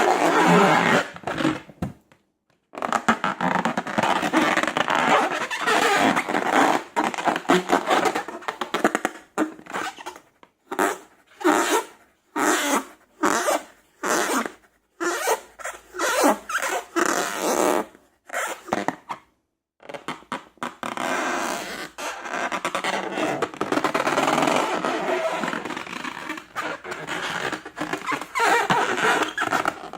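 Slime being squished and worked by hand: wet, sticky squelching and crackling, steady at first and at the end, broken into short separate squishes with pauses in the middle.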